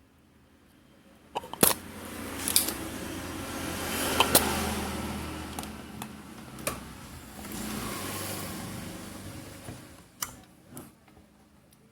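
Tool handling on a CRT TV circuit board while faulty capacitors are being removed: several sharp clicks and knocks over two swells of hiss.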